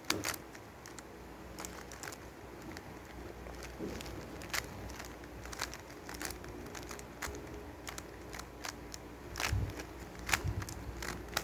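Plastic puzzle cube being turned by hand: irregular clicking and clacking of the layers as they are twisted, with a few louder clacks in the last third.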